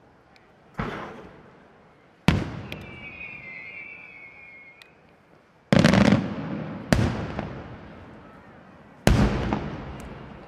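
Aerial firework shells bursting: five loud booms spaced unevenly, each followed by a long rolling echo that dies away.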